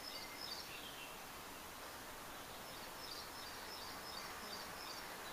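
Steady room hiss with faint high chirping in the background, in two short runs, one near the start and one about three seconds in.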